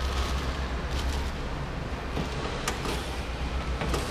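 Steady low background rumble with a few light knocks and clicks spread through it.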